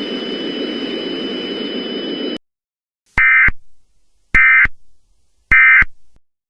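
Steady static hiss with two thin high tones that cuts off about two and a half seconds in. Then come three short, loud, warbling digital data bursts about a second apart: the EAS SAME end-of-message tones that close an Emergency Alert System broadcast.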